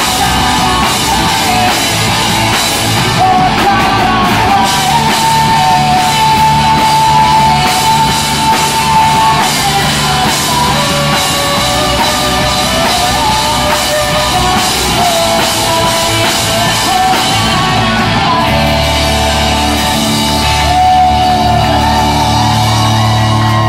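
Live rock band playing loud: electric guitar, electric bass and drum kit, with shouted singing.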